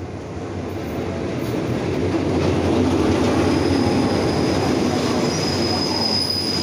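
Diesel locomotive and passenger carriages running along the platform, growing louder as they close in, with a thin high squeal setting in about halfway through.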